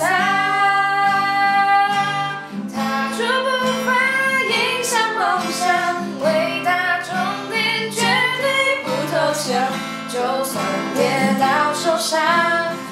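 Two voices singing a Mandarin pop song to a strummed acoustic guitar. The first two seconds are one long held note, before the sung line resumes.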